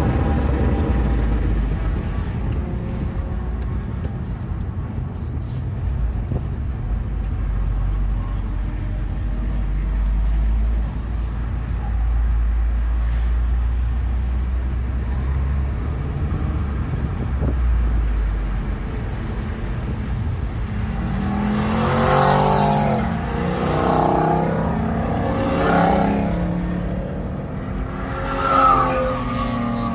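Ford Focus RS's 2.3-litre turbocharged four-cylinder engine and road noise heard from inside the cabin at low speed: a steady low rumble at first. From about two-thirds of the way in, the engine note rises and falls, with a brief louder swell near the end.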